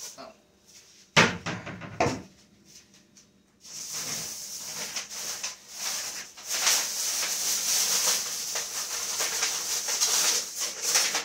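Two knocks a second apart, then several seconds of loud crinkling and rustling as foil stove drip-pan liners are handled and taken from their packaging.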